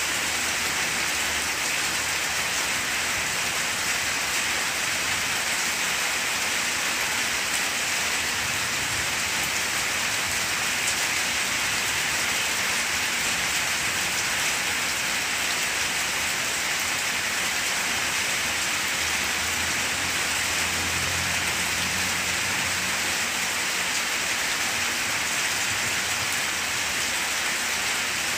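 Steady rain falling on banana leaves, an even patter that holds at one level throughout. A faint low rumble rises under it about twenty seconds in.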